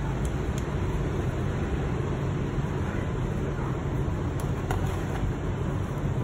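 Steady low rumble of background noise with a few faint light clicks.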